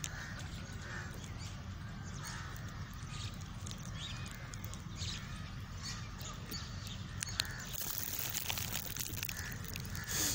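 Crows cawing now and then over a steady low rumble.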